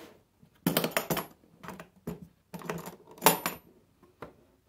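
Metal latches on a hard plastic tool carrying case being snapped open and the lid lifted: a string of sharp clicks and clacks, the loudest about three seconds in.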